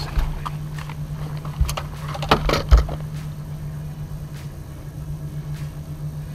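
Steady low hum of a bow-mounted electric trolling motor, with a few knocks and a short clatter about two seconds in as the landing net's handle bumps against the boat while a hooked bass is brought to the net.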